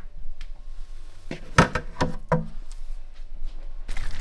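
A handful of short knocks and clicks in a small room, the loudest about halfway through. Near the end a steady noisy background comes in.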